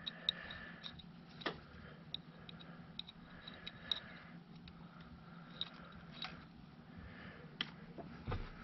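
Light, scattered clicks and scrapes of a small metal pick working at the O-ring in the groove of an oil filter housing cap, over a faint steady hum.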